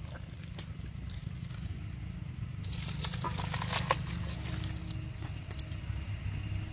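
Fish curry in a pot being worked with a spoon: wet sloshing and scattered clicks, with a stretch of hissing about three seconds in, over a low steady rumble.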